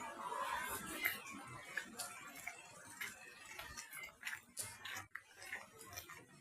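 Faint, irregular clicks and ticks over a quiet background.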